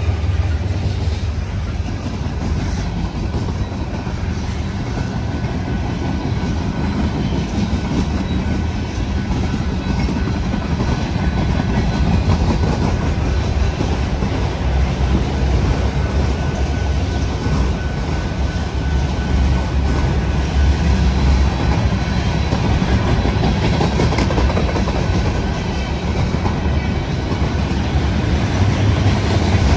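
A Union Pacific freight train's cars rolling past in a steady stream of wheel-on-rail noise, heaviest in the low end.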